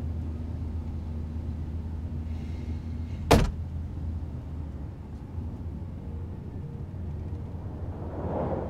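Steady low rumble of a truck driving, heard from inside the cab. One sharp knock sounds about three seconds in.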